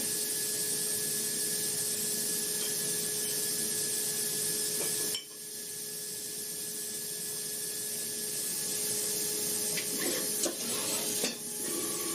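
CNC machine running: a steady hiss with two even tones, briefly dropping about five seconds in, and a few light clicks near the end.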